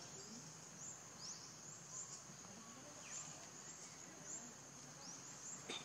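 Faint outdoor ambience: a steady high insect drone with short rising chirps repeating about twice a second, and a single sharp click near the end.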